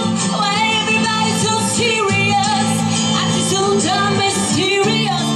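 A woman singing into a handheld microphone over instrumental backing music. Her voice glides between held notes above a steady accompaniment.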